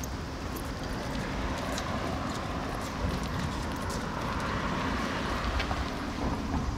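Footsteps on a paved street, with the rushing noise of a passing vehicle that swells over a few seconds and fades near the end.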